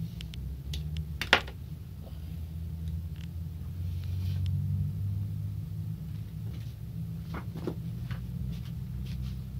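Steady low rumble, with one sharp click about a second in and a few fainter clicks near the end.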